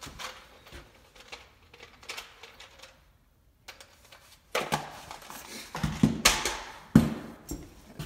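Handling noise from gloved hands working at furnace wiring: light rustling and clicks, then, about four and a half seconds in, a louder stretch of rustling and knocks with one sharp knock near the end.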